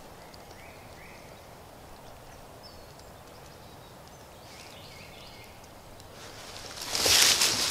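Quiet woodland ambience with a few faint, short bird chirps. About seven seconds in, loud close rustling and scraping starts as cloth or a hand brushes against the camera.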